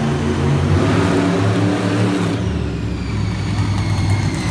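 Monster truck engine running and revving as the truck drives across the dirt course. Its low engine tone shifts about two seconds in.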